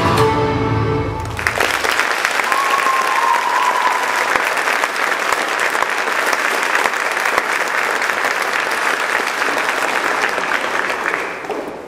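Music stops about a second and a half in and an audience applauds steadily, the clapping dying down near the end.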